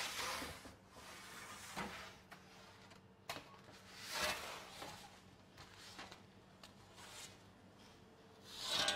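Metal baker's peel scraping and sliding on a deck oven's floor and clattering as baked baguettes are pulled out and slid off, a handful of separate scrapes and knocks a second or two apart, over a faint steady hum.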